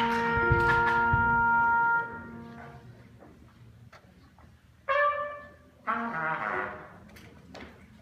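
Jazz band horns holding a few steady notes that stop together about two seconds in, then a trumpet playing two short notes about a second apart.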